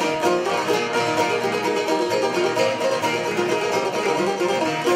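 Sharki, an Albanian long-necked lute, played instrumentally with fast, rapid plectrum strokes.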